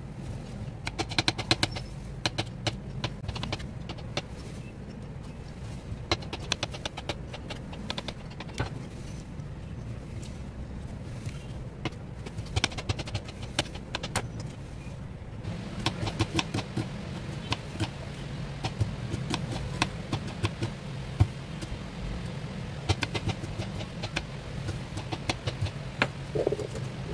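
Kitchen knife cutting summer squash and onion on a mat, making irregular runs of short, sharp taps as the blade strikes the surface. A steady low hum runs underneath.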